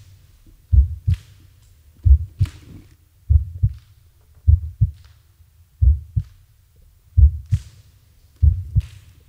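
Heartbeat pulse: seven pairs of deep lub-dub thumps, about one every 1.3 seconds, steady and slow, with a faint airy hiss on some beats.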